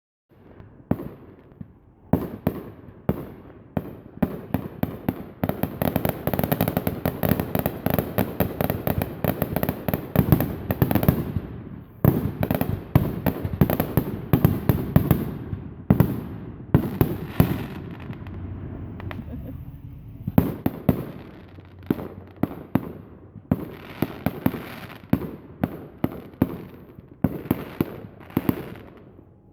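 Fireworks going off in quick succession: dense volleys of sharp cracks and bangs, thick from about five seconds in, thinning for a couple of seconds about two-thirds through, then picking up again.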